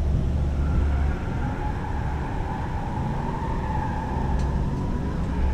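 Car driving on a road-course track: steady engine noise with a wavering high whine running above it.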